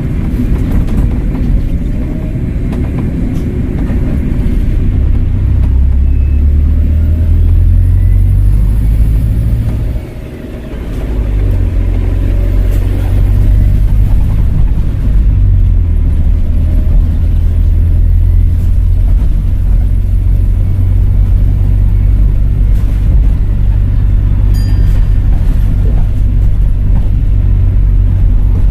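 Volvo B5LH hybrid bus's four-cylinder diesel engine running steadily under way, a loud low rumble that drops away briefly about ten seconds in before picking up again.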